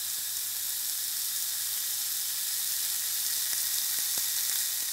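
Rib-eye steak sizzling on a hot grill grate: a steady high hiss, with a few faint pops about three and a half to four seconds in.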